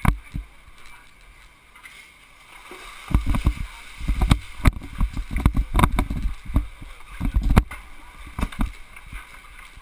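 Uneven low rumbling and buffeting on the camera microphone, in bursts from about three seconds in, lasting some five seconds, with a few sharp knocks among them.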